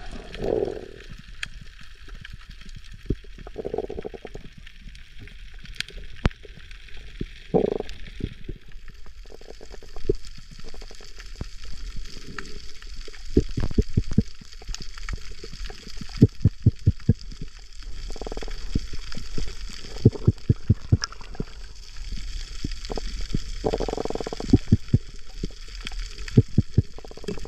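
Underwater sound picked up by a camera beneath the sea: a steady low rumble and hiss with irregular sharp clicks and crackles, coming in quick runs in the second half, and a few short muffled whooshes.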